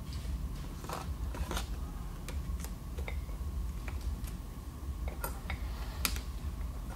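Irregular light clicks and ticks of metal automatic-transmission clutch drum parts being handled and worked apart by hand, with a steady low hum beneath.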